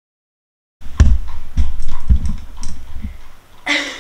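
A quick run of about five knocks and thumps, each with a click, over roughly two seconds, starting suddenly about a second in.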